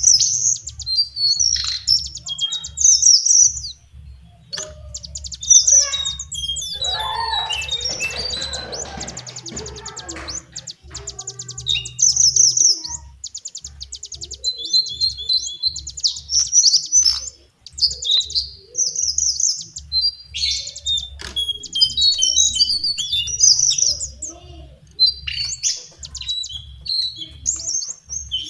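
Lesser shortwing singing: phrase after phrase of high, thin, rapid notes and fast trills with short pauses between, over a faint steady low hum.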